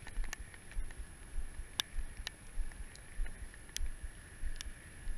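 Wind gusting on the microphone in uneven low rumbles while a spinning reel is slowly cranked, with a few sharp, scattered clicks.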